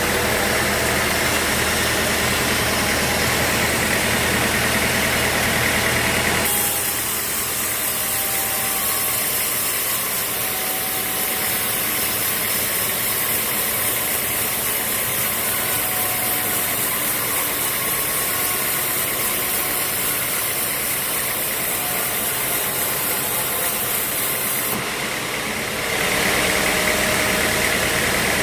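An engine running steadily with a low hum. About six seconds in the sound changes abruptly: the low hum drops back and a steady high hiss takes over, until the low hum returns shortly before the end.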